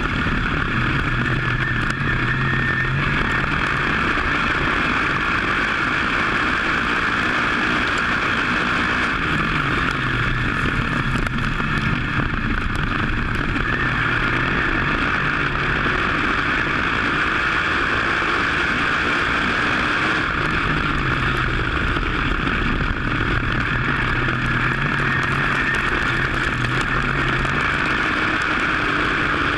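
V8 engine of a WISSOTA modified dirt-track race car heard from an in-car camera, running under load with its note rising and falling every ten seconds or so as it accelerates and lifts around the oval. Heavy wind and road rush runs throughout.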